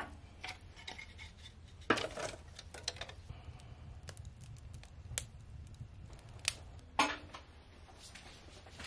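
Scrap wood and kindling burning in a wood stove, crackling with scattered small pops, and a few louder knocks about two seconds in and about seven seconds in, over a low steady hum.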